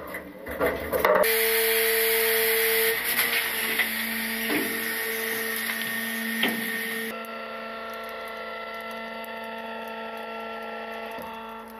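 Small side-loader garbage truck's hydraulic packer running with a steady whine and hiss that starts about a second in. About halfway through it drops to a quieter, steady hum with several held tones.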